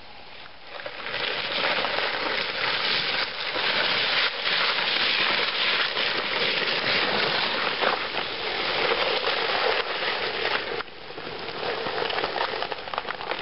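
A sled sliding fast over ice-crusted snow, heard as a continuous scraping, crackling hiss. It starts about a second in, drops off briefly near eleven seconds, then builds again.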